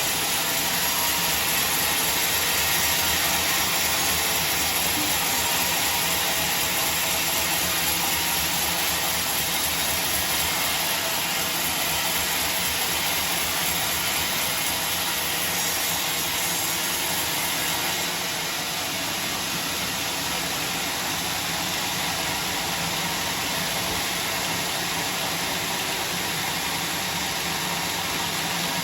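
Sawmill machinery running steadily, a dense even noise with a high hiss, dropping slightly in level about eighteen seconds in.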